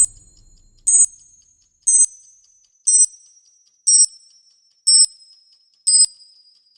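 Countdown timer sound effect: a short, high electronic beep once a second, seven times, each beep a little lower in pitch than the last, with faint ticks between them.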